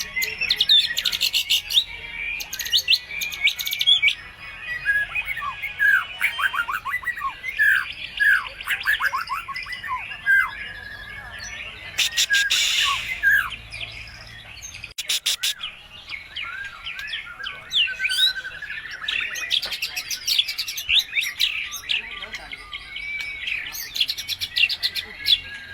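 White-rumped shama singing a long, varied song: fast runs of falling whistled notes, trills and bursts of harsh clicking notes, full of mimicked phrases of other birds.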